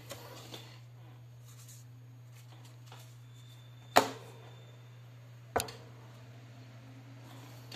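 A small plastic feature phone is set down on a wooden desk with a sharp knock about four seconds in, followed about a second and a half later by a second, weaker knock. Light handling rustles come near the start, over a steady low hum.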